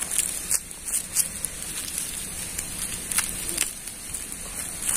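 Plastic bag crinkling and crackling in irregular bursts as boiled fish-pellet bait dough is squeezed and kneaded inside it by hand.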